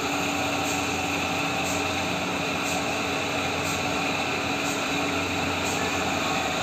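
A steady machine hum with faint light ticks about once a second.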